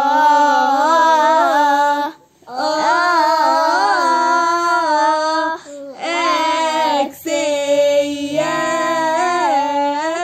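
Girls singing a Coptic Arabic madih (hymn of praise) to the Virgin Mary: long, drawn-out melodic phrases with wavering held notes, broken by short breaths about every two seconds.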